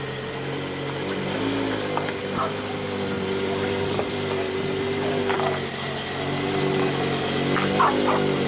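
Supercharged BMW S85 V10 engine of an M5 with a G-Power SK1 kit idling steadily through its four tailpipes, the note shifting slightly in pitch a couple of times.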